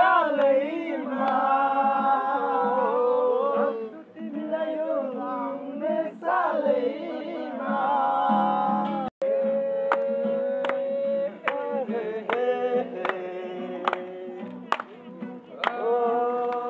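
Music: a song with sung vocals over an instrumental backing, which drops out for an instant about halfway through and then goes on with sharp clicking hits.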